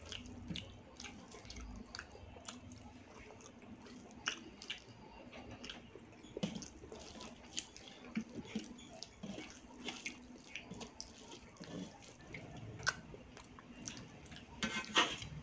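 Fingers mixing cooked rice with kadhi on a brass plate: soft wet squishing with scattered small clicks. Near the end, kadhi is poured from a steel bowl onto the rice, with a brief burst of rapid clicks.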